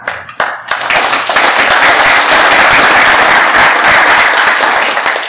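Audience applause: a few scattered claps at first, then dense clapping from about a second in that fades near the end.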